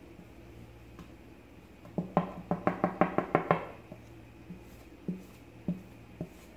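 Wooden spatula tapping against the rim of a plate: about ten quick sharp knocks in a second and a half, then three single knocks. The taps knock rice flour off the plate into the pan.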